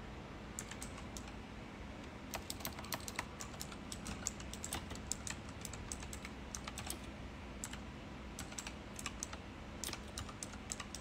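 Typing on a computer keyboard: irregular runs of quick key clicks, some pauses between runs, over a faint steady hum.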